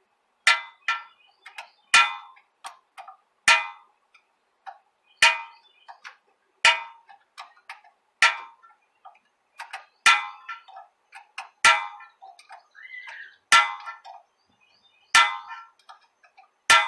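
Hand wrench tightening the drive shaft bolts: a sharp metallic clink with a short ring about every second and a half, with fainter clicks in between, as the wrench is worked in short strokes.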